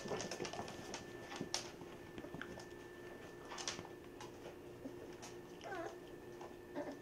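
Basset hound puppies moving about, with light clicks and scuffs of paws on the floor, and a puppy's short squeaky whimper near the end.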